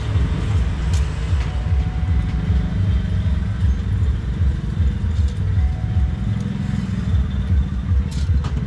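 Steady low mechanical rumble, like a running motor, with a few faint clicks.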